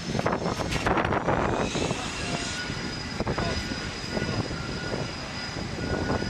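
Carrier flight-deck noise of nearby jet engines: a steady rushing noise with high whining tones running through it. A handful of knocks land in the first two seconds or so.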